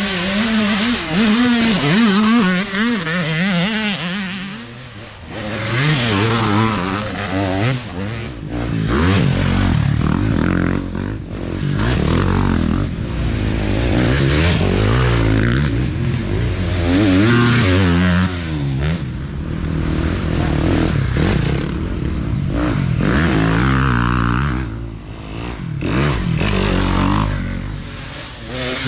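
Several dirt bikes ride past one after another in an off-road race. Their engines rev up and drop back as each rider accelerates through the trail section, swelling and fading with each pass.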